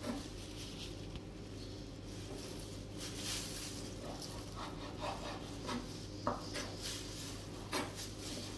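Chef's knife slicing raw beef into thin strips on a bamboo cutting board: irregular strokes of the blade knocking and scraping on the wood, with a sharper knock about six seconds in.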